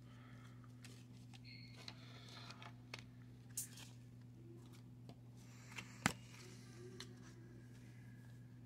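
Faint room tone: a steady low hum, with a few soft clicks and one sharp click about six seconds in.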